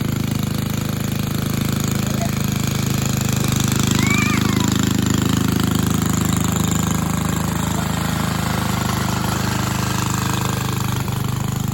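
1961 Cooper Klipper reel mower's 2.5-horsepower Briggs & Stratton single-cylinder engine running steadily, with a short high chirp about four seconds in.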